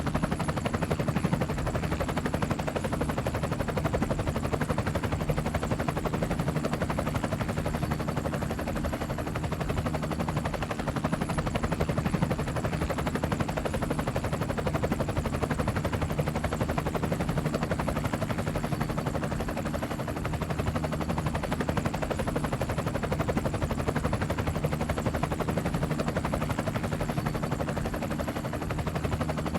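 Helicopter rotor chop: a steady, fast, even beat of blade pulses over a low engine hum.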